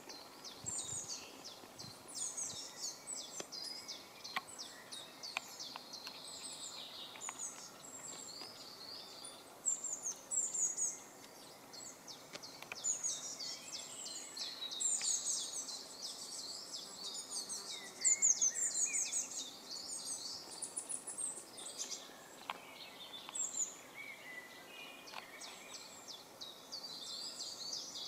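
Several small songbirds singing and chirping: rapid, high, overlapping notes and trills throughout, fullest about eighteen seconds in, with a few faint clicks in the first seconds.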